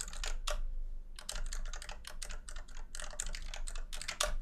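Typing on a computer keyboard: irregular runs of keystrokes with a short pause early on and a louder keystroke near the end. The keys are entering a username and password at a login prompt.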